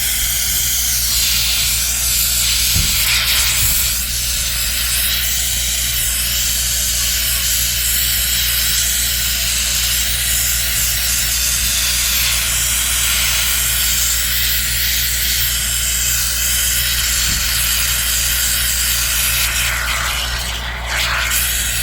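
Can of Great Stuff expanding spray foam hissing steadily as foam is sprayed onto a PVC condensate trap to insulate it, with a brief break near the end before it starts again. A steady low hum runs underneath.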